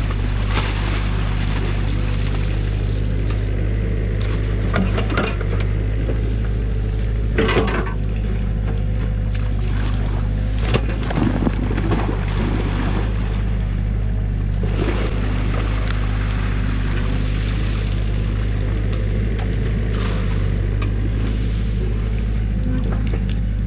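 Compact excavator's diesel engine running steadily while its bucket digs through a beaver dam in a stream. Flowing water and short splashes and knocks from the bucket come now and then, most clearly about seven and a half seconds in and again around eleven to twelve seconds.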